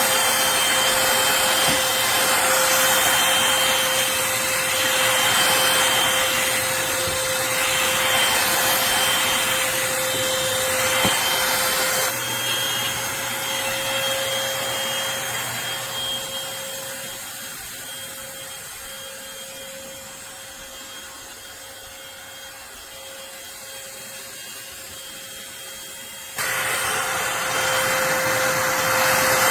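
Eureka Blaze cordless stick vacuum running, a steady motor whine over a rush of suction air. It grows quieter from about halfway through, then comes back suddenly at full loudness near the end.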